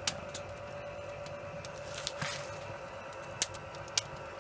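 Wood fire crackling, with a few sharp pops at irregular moments over a steady faint hum; the fire is freshly stoked with new wood.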